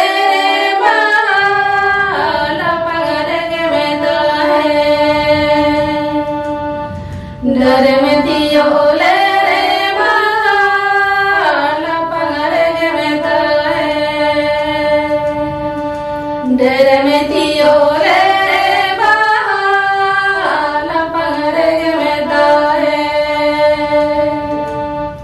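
Two women singing together to an electronic keyboard playing sustained chords. The song comes in three phrases, each ending on a long held note.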